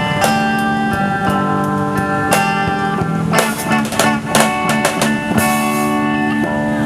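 Live band playing the instrumental intro of a slow Indonesian pop song: guitar melody over held chords, with sharp percussion hits joining in about two and a half seconds in.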